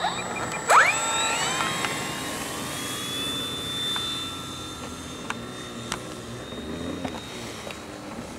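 Radio-controlled model jet flying past, its high-pitched whine rising sharply about a second in, then holding steady.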